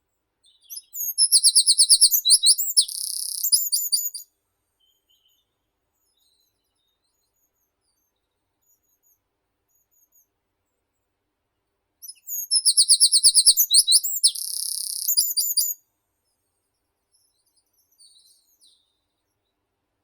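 A songbird singing the same song twice, about eleven seconds apart. Each phrase is a rapid run of repeated high notes that ends in a short buzzy part, about three seconds long.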